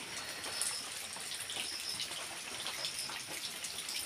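Steady falling rain: an even hiss with faint scattered drop ticks.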